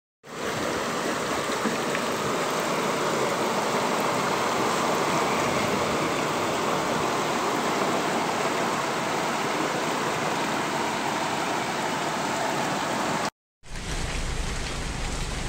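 Floodwater rushing along a flooded street in a heavy rainstorm, a steady, even rush of water. Near the end it cuts out for a moment and gives way to rain falling.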